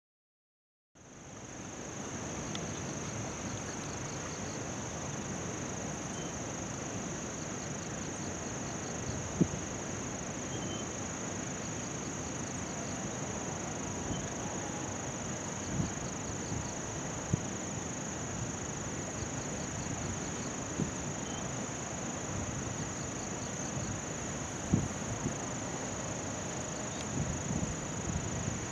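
Insects chirring in one steady, unbroken high tone over an even hiss, with faint repeated trills beneath it and a few short bumps.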